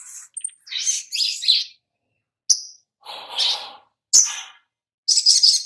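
Brown-throated sunbird (sogok ontong) calling: a string of sharp, high chirps and short twittering phrases broken by brief pauses, the kind of song used as a lure to set other birds singing.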